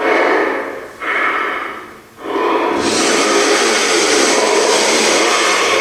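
A Leatherface Halloween animatronic running after being switched on, its speaker playing its sound effects: three short bursts that each fade, then from about two seconds in a continuous loud noise.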